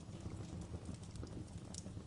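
Wood fire crackling: scattered sharp pops and snaps over a low steady rumble of the flames.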